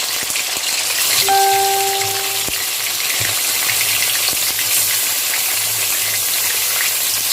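Marinated chicken pieces frying in hot oil and ghee, a steady sizzle. A brief steady beep-like tone sounds for about a second just after the start.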